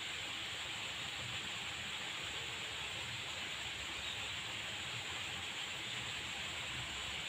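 Steady outdoor ambient hiss with no distinct events.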